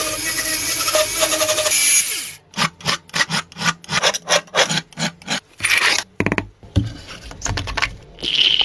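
Tool work on a small toy car: about two seconds of steady grinding noise, then a run of short rubbing or scraping strokes, about four a second.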